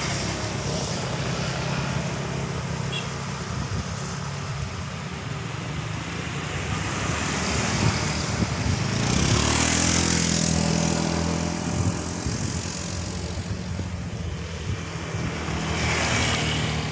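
Street traffic: vehicle engines running steadily, with a vehicle passing about ten seconds in, the loudest moment, and another swelling past near the end.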